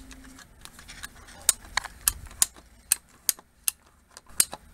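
Handheld PVC pipe cutter closing its blade through 2-inch PVC pipe: a series of sharp, irregularly spaced clicks as the handles are squeezed again and again.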